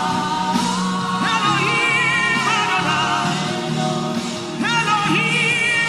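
Slow gospel worship music: voices singing long held notes that glide between pitches, over steady sustained chords.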